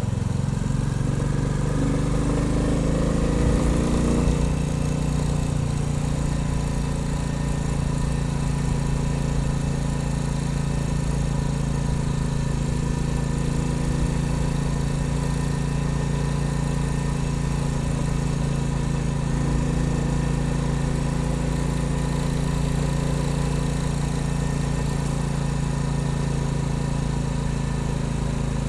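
Royal Enfield Bullet 350's single-cylinder engine under way: the revs rise over the first four seconds or so as the bike accelerates, then it settles into a steady cruise.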